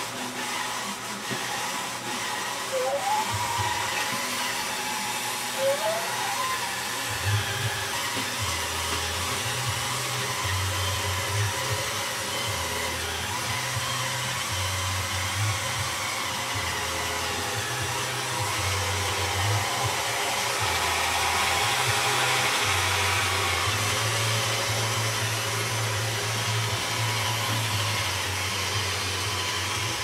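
A Roomba robot vacuum running on carpet, its motor giving a steady hiss. Two short rising squeaks come about three and six seconds in.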